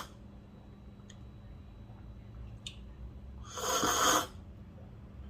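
One slurp of brewed filter coffee taken for tasting, lasting under a second about three and a half seconds in, with a couple of faint clicks before it.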